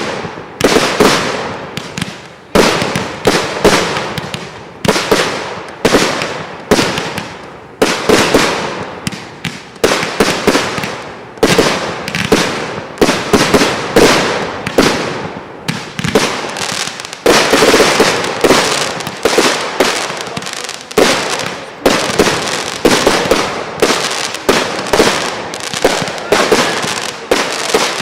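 Fireworks display: aerial fireworks bursting in quick succession, about one to two loud bangs a second, each fading off quickly before the next.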